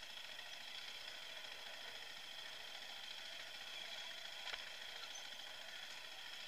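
Husqvarna dirt bike engine running, heard only as a faint steady hum while the bike rides over rocky singletrack, with one sharp click about four and a half seconds in.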